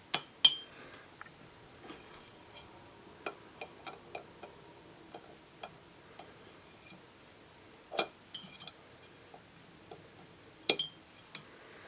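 Irregular clicks and clinks of plastic Rubik's Cube pieces knocking against the inside of a glass jar as the cube is put together inside it. A few sharper knocks stand out near the start, about two-thirds of the way through and near the end.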